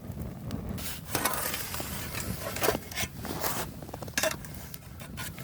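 A metal pan being handled and set on hot coals: a few short scrapes and clinks over a low rumble.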